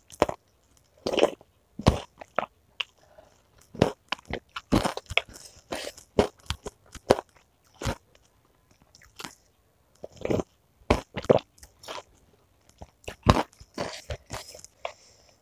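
Close-up chewing and biting of crunchy bakso made with chicken cartilage: irregular crunches with short pauses between bites.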